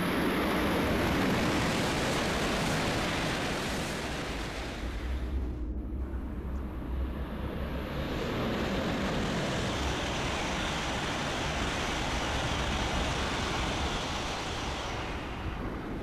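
Shinkansen high-speed trains passing in snow, heard as a loud rushing noise. An E6 series Shinkansen rushes past first; about six seconds in the sound cuts sharply and a second high-speed train's rush builds, then fades near the end.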